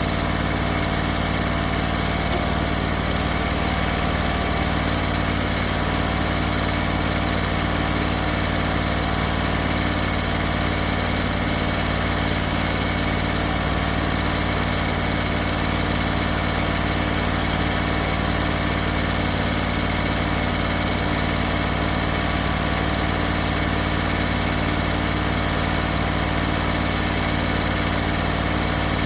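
Hydraulic sawmill's engine idling steadily, its speed unchanged throughout.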